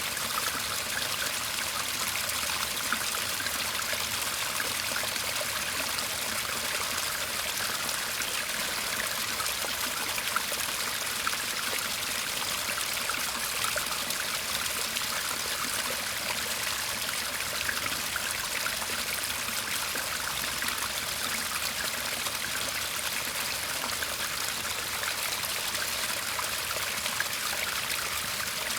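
Shallow garden stream murmuring steadily.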